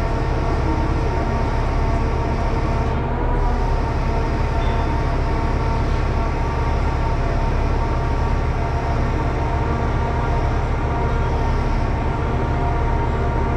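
Diesel truck engine idling steadily, with an even, unchanging low-pitched hum.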